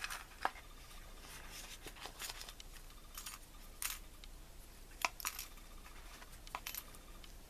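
Scattered light clicks and small rattles of handling, as a container of lock shims is worked open and a shim taken out.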